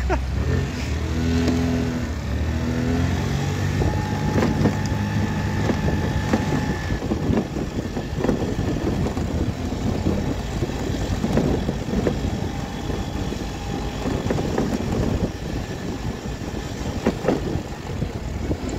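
Riding a 50 cc RKS Azure 50 Pro scooter along a gravel track behind a car, with the car's engine pulling away at first. The small scooter engine is running at moderate speed, still in its running-in period, and its revs rise about four seconds in. Tyres crunch over the gravel with wind noise and occasional knocks from bumps.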